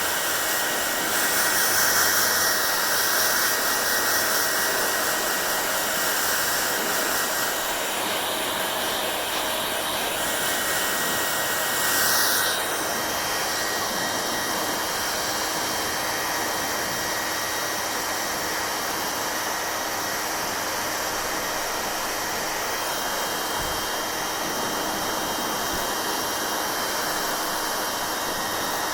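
Electric hair dryer blowing continuously: a steady rush of air with a thin motor whine in it. It is a little louder and brighter for the first dozen seconds, then settles to an even level.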